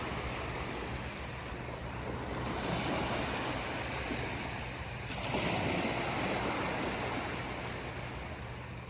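Ocean waves washing onto a beach, a continuous surf wash that swells about five seconds in and then eases off, with a low rumble of wind on the microphone underneath.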